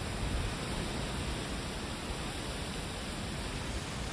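Steady wind blowing through autumn trees, with dry fallen leaves rustling in it.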